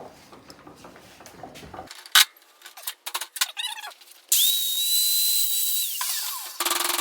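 A single sharp knock about two seconds in and a few light clicks of metal being handled, then a handheld power tool spins up with a high whine, runs for about two seconds and winds down, starting again just before the end.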